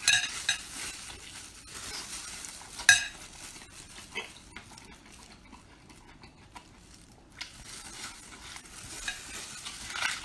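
Close-miked slurping and chewing of strips of braised large intestine: wet mouth smacks and sucking, the sharpest right at the start and about three seconds in, quieter in the middle.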